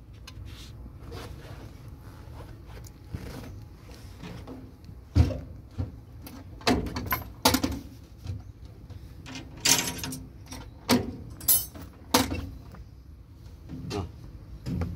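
Scattered knocks and clinks of parts and tools being handled on a stopped excavator diesel engine, over a low steady rumble.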